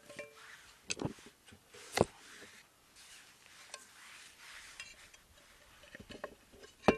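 Metal cookware clinks and knocks as vegetables are chopped and handled in a mess tin: a few separate sharp knocks, the loudest about two seconds in, and one near the end with a brief metallic ring.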